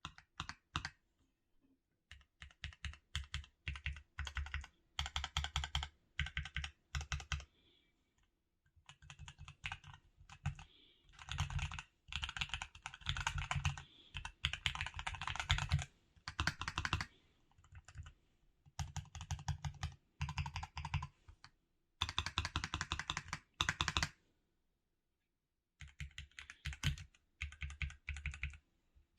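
Typing on a Keychron Q2 mechanical keyboard with Baby Kangaroo switches, tape and foam mods, and NuPhy nSA dye-sub PBT keycaps: bursts of rapid keystrokes separated by short pauses.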